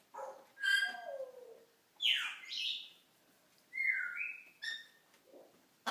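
A pet parrot making a string of mimicked cartoon-style sound effects: about five short whistles and squawks, some gliding down in pitch and some up, with short gaps between them.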